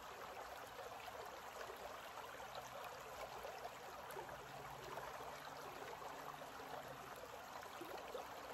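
Shallow creek running over rocks: a faint, steady rush of flowing water.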